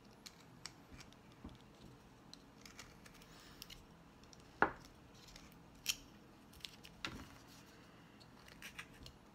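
A carving knife cutting into a wooden block by hand: short paring scrapes and sharp little snaps as the blade slices and chips off wood, the loudest few snaps coming around the middle and shortly after.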